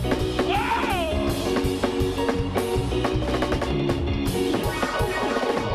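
Band music with a drum kit keeping a steady beat under held chords; a short sliding voice-like line rises and falls about half a second in.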